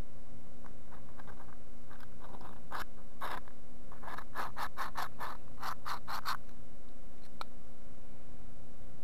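Twist drill bit in a 3D-printed PLA hand pump drill scratching against wood as the handle is pumped: a few scratchy strokes, then a quicker run of about four or five a second that stops abruptly, and a single sharp click near the end. The bit only scrapes a shallow pit, slipping in its three-jaw chuck.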